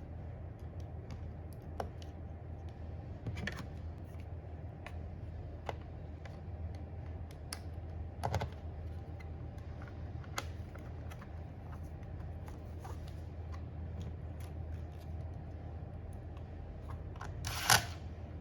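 Scattered light clicks and taps of small parts being handled during a motherboard replacement, over a steady low hum, with one louder, sharper click near the end.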